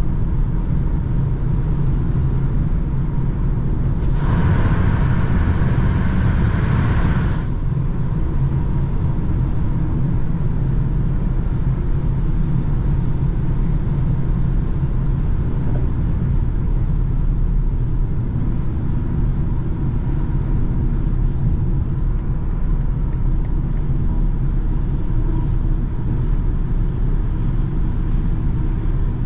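Steady low road and engine rumble inside a BMW's cabin at motorway cruising speed. A louder rushing hiss rises over it about four seconds in and lasts about three seconds.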